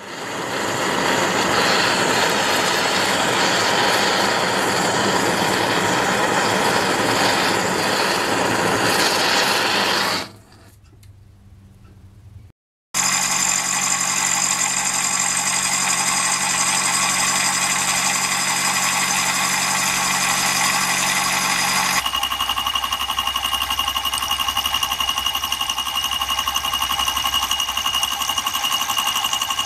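A gas torch flame hisses steadily for about ten seconds while heating a steel connecting-rod joint for brazing. After a short pause, a milling machine runs with a steady whine of several tones as its end mill cuts a brass part on a rotary table. The tone shifts about two-thirds of the way through.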